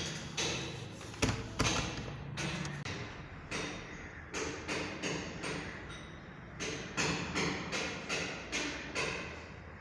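An irregular series of sharp knocks and taps, roughly one to two a second, each ringing briefly before dying away.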